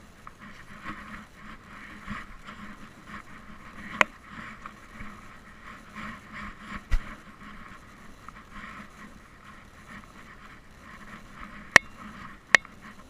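Irregular scraping and rubbing on a GoPro strapped to a dog, with a few sharp clicks and a low thump.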